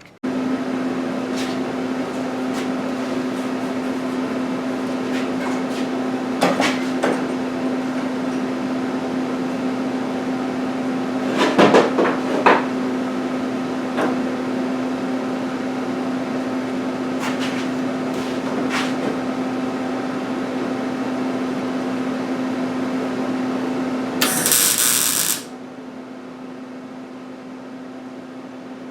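Electric grinder running steadily with a constant hum, working sheet-steel rust-repair patch pieces. A few brief louder grinding spikes come through, then a short hissing burst near the end, after which it runs on more quietly.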